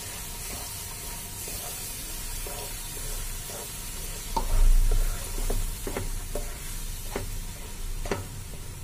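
Milk hitting semolina roasted in ghee in a hot nonstick kadhai, sizzling steadily while a wooden spatula stirs and scrapes the pan. There is a low thud about halfway through.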